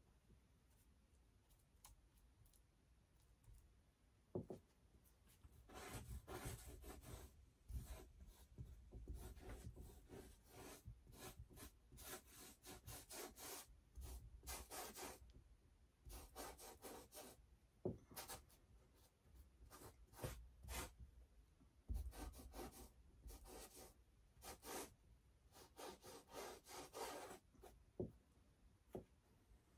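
A paintbrush scrubbing and rubbing against a stretched canvas in runs of quick, scratchy strokes, several a second, broken by short pauses.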